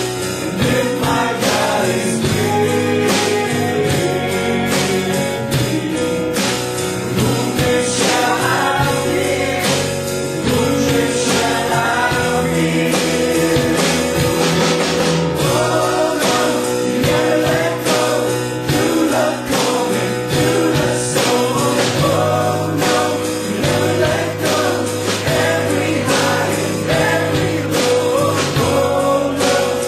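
Live gospel worship band playing a song with singing: a drum kit keeping a steady beat under keyboard and guitar chords.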